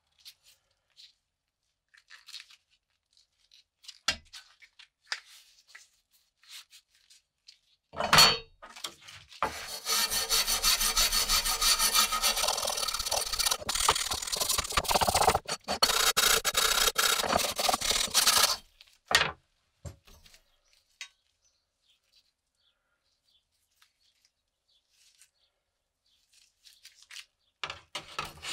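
Wire brush scrubbed hard back and forth over the rusty steel blade of an antique sickle, a loud scratchy scrubbing for about nine seconds, just after a sharp knock as the blade is set on the bench. A few faint handling knocks near the end.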